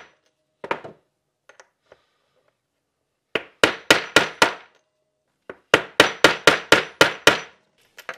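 Hammer striking a steel 1/4-inch driver extension used as a punch, driving a cartridge bearing out of a DT Swiss-style ratchet hub's freehub body. Sharp metal taps come in short runs, the longest about eight quick blows near the end, as the punch is worked around the bearing.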